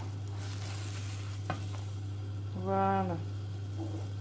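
Banana pancake batter sizzling in a hot non-stick frying pan, over a steady low hum, with a single light click of the spatula against the pan about a second and a half in.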